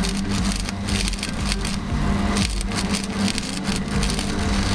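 Electric welding arc crackling and sputtering steadily while a small steel tab is welded onto a steel exhaust pipe, with a steady low hum underneath.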